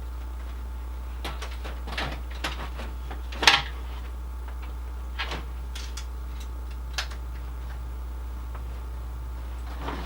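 Scattered knocks and clicks of ice fishing gear being handled and set down, the loudest about three and a half seconds in, over a steady low hum.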